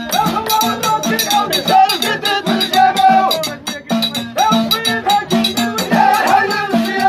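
Abidat Rma folk ensemble: a group of men chanting in unison over hand percussion that keeps a fast, steady beat.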